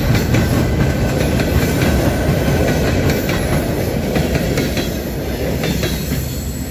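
Open-top gravel hopper cars of a freight train rolling past close by: a steady low rumble with wheels clicking over the rail joints, easing off slightly near the end as the last car goes by.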